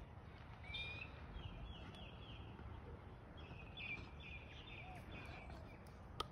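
Faint outdoor background rumble with a bird calling in two runs of quick, repeated high chirps, one about a second in and another around three and a half seconds in.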